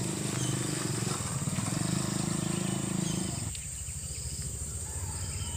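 A small engine runs low and steady, then stops about three and a half seconds in. Over it insects drone steadily and birds give short high chirps.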